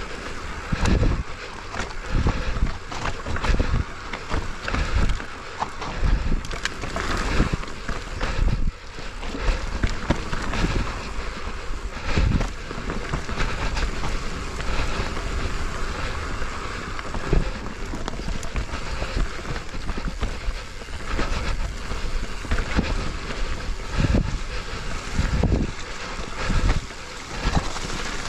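Mountain bike descending a rough dirt trail: wind rushing over the camera microphone, tyres rolling on dirt, and frequent irregular thumps and rattles as the bike hits bumps.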